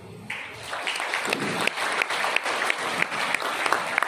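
Audience applauding, the clapping starting about a third of a second in.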